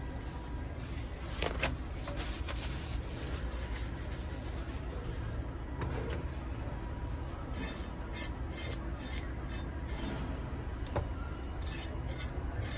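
Hands and a knife rubbing and scraping on a wooden chopping board while mackerel are cleaned, with a couple of sharp knocks on the board. The scraping strokes come thick and fast in the second half, over a steady low rumble.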